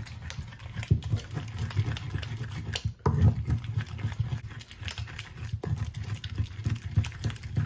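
A wooden pestle (tapoli) grinding soft vegetables against a ridged earthenware grinding bowl (asanka): repeated rubbing and knocking strokes in a wet mash of garden eggs, turkey berries and onion.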